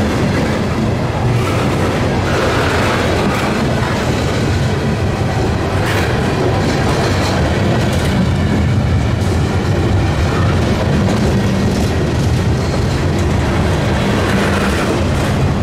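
CSX mixed manifest freight train rolling by, with steel wheels clicking over the rail joints on top of a steady low rumble.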